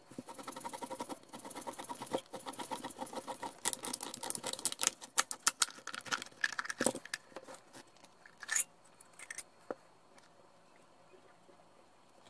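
A FRAM oil filter's steel can being turned by hand in an oil filter cutter, the cutter wheel scraping and ticking rapidly around the can for about seven seconds. A few separate metal clatters follow about eight to nine and a half seconds in.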